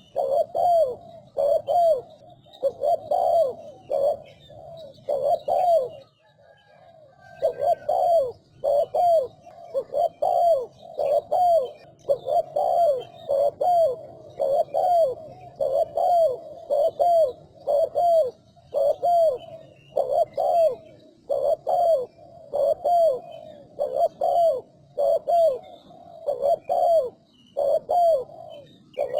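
Spotted dove cooing fast, in rapid repeated coo phrases of two to three notes a second, with one short pause about six seconds in.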